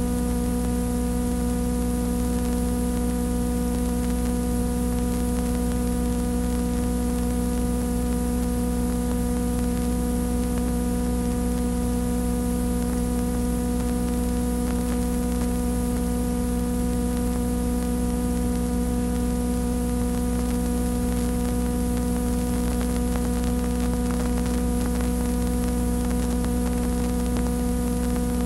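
Steady electrical mains hum with a stack of even overtones, over constant hiss and static; no other sound.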